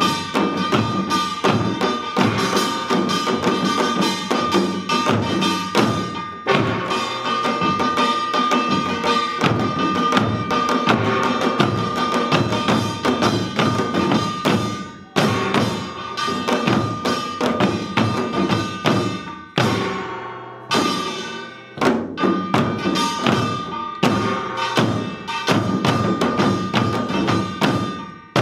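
Samulnori ensemble of janggu hourglass drums and buk barrel drums beating a fast, dense rhythm under the ringing clang of the kkwaenggwari small gongs. The rhythm breaks off briefly about halfway through and again about two-thirds through, then picks up again.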